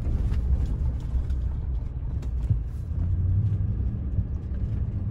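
Low, steady rumble of a car driving on a gravel dirt road, heard from inside the cabin, with a few faint knocks from the rough surface.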